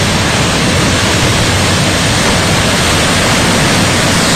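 Muddy floodwater and landslide debris pouring down a hillside: a steady rushing noise.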